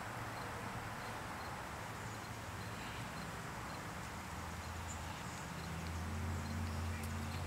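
Outdoor background noise, with a low steady machine-like hum that grows louder about halfway through.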